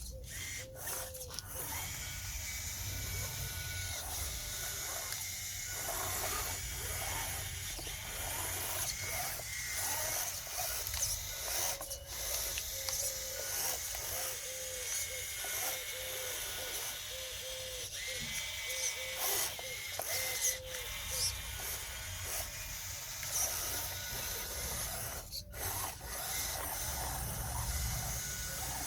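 Small electric drive motors and gearboxes of radio-controlled model construction machines whining and whirring over a steady hiss, the whine coming and going and wavering in pitch, with a few light clicks.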